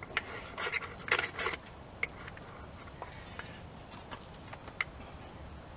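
A knife scraped in several quick strokes against a fire-starting rod in the first second and a half, then a few light clicks.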